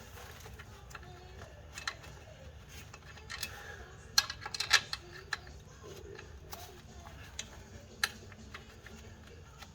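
Scattered sharp clicks and light metal taps, bunched together about four to five seconds in and with a single one near the end, as bolts and hand tools are worked against the flywheel while fitting it.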